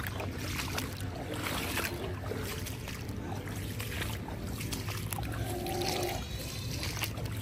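Rubber boots splashing step after step through shallow floodwater standing in grass.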